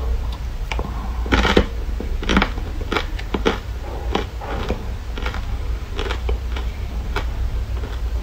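Chewing and crunching a hard ice cube coated in matcha powder: irregular sharp crunches, with a loud cluster about a second and a half in, over a steady low hum.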